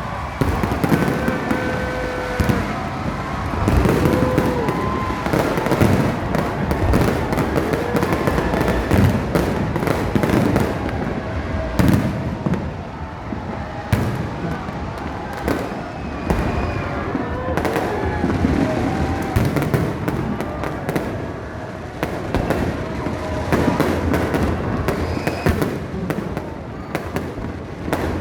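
Fireworks going off in quick succession: many sharp bangs and crackles without a break.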